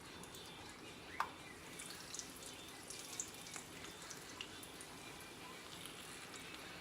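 Faint crackle and small pops of oil frying a taco in a pan, with one sharper click about a second in.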